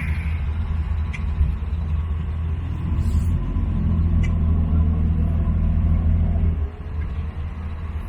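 Jeep engine running with a steady low hum. From about three seconds in, its pitch rises as the engine speeds up, then it falls back to idle near the end.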